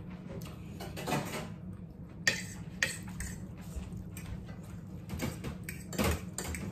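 Forks clinking and scraping against ceramic dinner plates as two people eat, with a few sharper clinks spread through, over a steady low hum.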